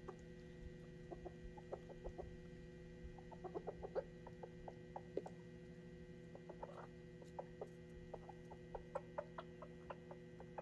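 Chicken clucking quietly in short, scattered clucks over a faint steady hum.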